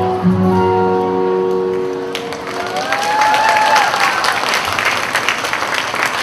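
The song ends on held notes that fade out, and about two seconds in an audience breaks into applause, with one voice calling out briefly over the clapping.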